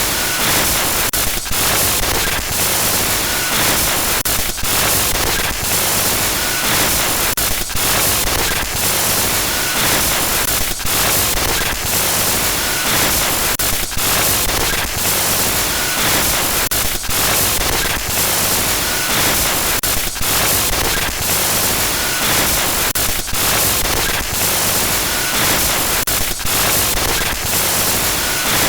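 Loud glitchy static noise, a harsh hiss that stutters and cuts out briefly many times a second, used as a horror sound effect.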